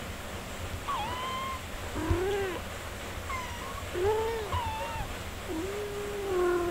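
Four-day-old kittens mewing while nursing: a string of short, thin cries that bend up and down in pitch, some high and some lower, the longest lasting about a second near the end.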